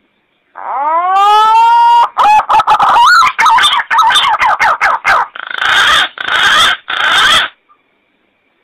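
Green pigeon (punai) call played as a hunting lure: a loud rising whistled glide, then a run of broken, wavering notes, ending in three harsh bursts.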